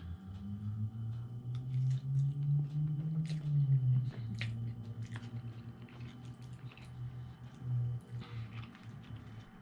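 Eating spaghetti with a plastic fork: chewing and slurping noodles, with small clicks of the fork in a cardboard tray. Under it runs a low hum that rises a little in pitch and drops about four seconds in.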